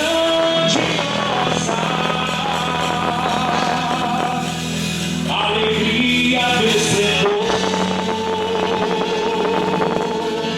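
Quadrilha junina music, a song with a voice singing over the accompaniment.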